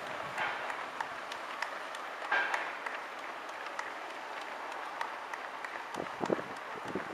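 Sparse clapping from roadside spectators as race runners go by, over a steady outdoor background hiss, with a few dull low thumps near the end.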